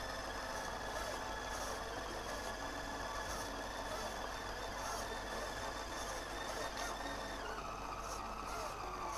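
R/C scale crawler's electric motor and gear drive whining steadily at a high pitch. The pitch steps down about seven and a half seconds in as it slows.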